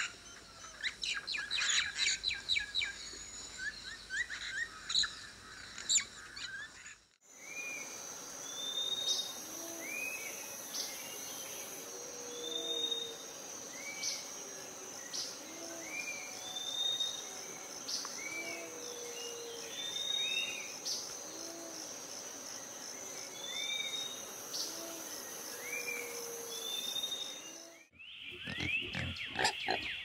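Forest ambience: several birds chirping and trilling over one another for the first seven seconds, then a steady high insect drone with a bird repeating a short call every second or two. Near the end, after a cut, a wild boar grunts.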